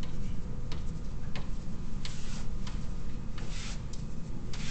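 A writing tool scratching across a surface in short, irregular drawing strokes as a sequence is sketched by hand, over a low steady room hum.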